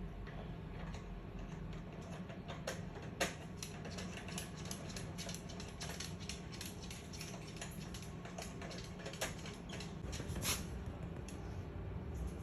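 Faint, irregular light clicks and taps from a double yellow-headed Amazon parrot's beak and feet on the surface beneath him, as he leans on his beak to help himself get around.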